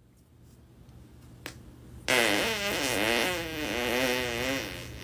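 A long fart of about two and a half seconds, starting abruptly, its pitch wavering up and down, over a steady low hum.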